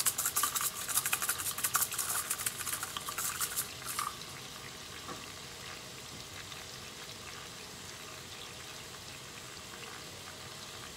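Seafood-boil butter sauce simmering in a stainless steel pan with a steady faint sizzle. Through the first four seconds a rapid run of light taps and clatters sits over it.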